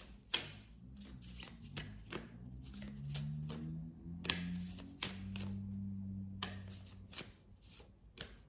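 Oracle cards being shuffled by hand, a quick run of crisp flicks and riffles. In the middle, a low hum whose pitch steps up and down sounds under the shuffling.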